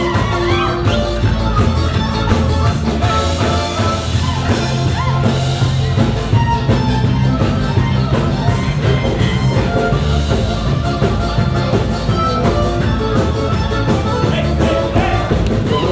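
Band music with a steady drum beat and a synthesizer keyboard playing an up-tempo dance tune.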